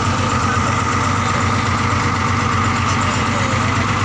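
An engine running steadily at an even speed, a constant unbroken drone.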